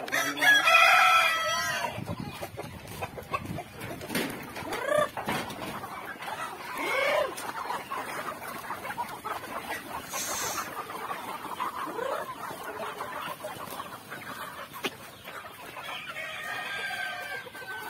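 Flock of native chickens clucking and calling, with a rooster crowing loudly near the start and again near the end.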